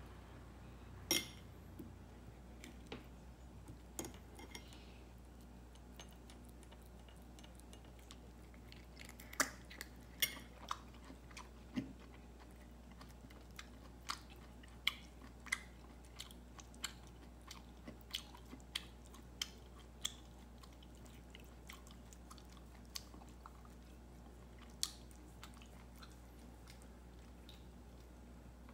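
A calico cat eating from a small ceramic dish: scattered sharp crunches and clicks of chewing at irregular intervals, sometimes several a second, sometimes a few seconds apart.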